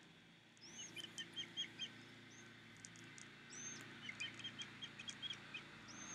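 A bird chirping: two quick runs of short, high, repeated chirps a few seconds apart, with a few thin whistled notes above them.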